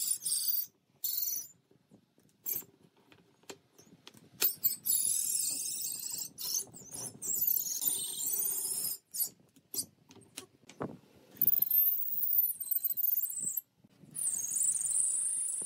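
Wooden chair slats and spacers being handled and fitted together on a workbench: sharp wooden clicks and knocks, with stretches of high-pitched wavering squealing, broken up by abrupt cuts.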